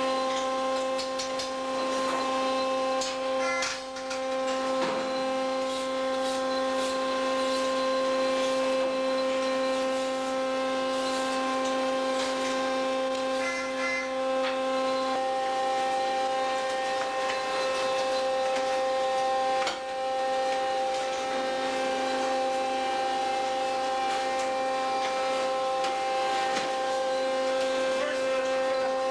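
Steady machinery hum aboard a fishing vessel, a drone of several fixed tones with scattered light clicks and knocks; its lowest tone drops out about halfway through.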